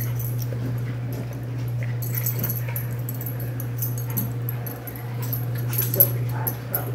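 Miniature schnauzer puppy whimpering and yipping as it plays with a ferret, among quick clicks and scuffles, with a sharp knock about six seconds in. A steady low hum runs underneath.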